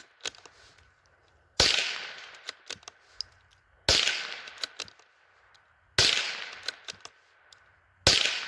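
Howa M1100 semi-automatic .22 LR rifle firing four shots about two seconds apart, each with a short echoing tail followed by light clicks.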